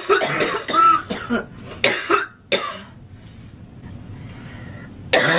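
A woman coughing in a loud, harsh fit: a quick run of coughs in the first two and a half seconds, a short lull, then another cough near the end. Coughing brought on by inhaling smoke.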